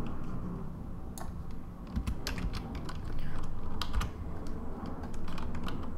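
Computer keyboard keys pressed in short, irregular clicks as shortcut keys are entered, over a low steady hum.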